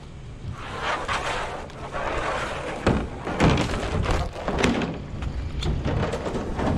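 Rustling, then several thumps and knocks as a person climbs out over the edge of a steel dumpster and steps down onto the pavement.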